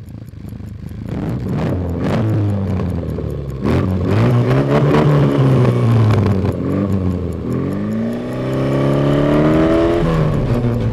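Mini Cooper engine being revved, the pitch sweeping up and falling back, then one long climb before letting off near the end.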